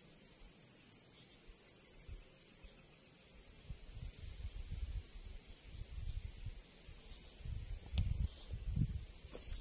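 Steady high-pitched outdoor hiss, with irregular low wind rumbles on the microphone building from about four seconds in and strongest near the end, and one faint click near the end.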